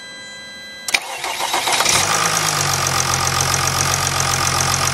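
Jeep Grand Cherokee CRD's 3.0 L V6 common-rail diesel being remote-started cold: after a click about a second in, the starter cranks briefly and the engine catches about two seconds in, then settles into a steady fast idle near 900 rpm.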